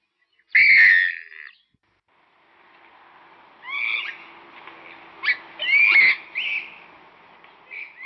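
Purple swamphen calling: one loud call about half a second in, then after a pause a series of shorter, arched calls over a faint steady hiss from about three and a half seconds on.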